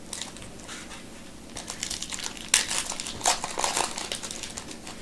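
Foil wrapper of a Bowman Chrome baseball card pack being torn open and crinkled by hand: a run of irregular crackles, loudest in the middle.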